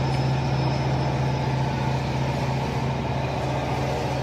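Hydraulic horizontal cardboard baling press running: a steady low hum from its motor and hydraulic pump.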